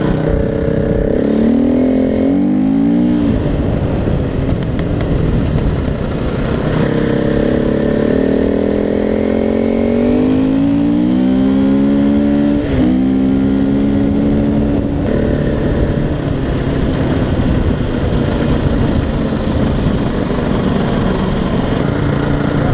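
KTM 350 EXC-F's single-cylinder four-stroke engine pulling hard as the dirt bike accelerates: its pitch climbs in several quick rising sweeps about two seconds in, then in one longer rise, drops sharply as the throttle comes off, and holds steady. In the second half the engine note fades under a steady rush of wind.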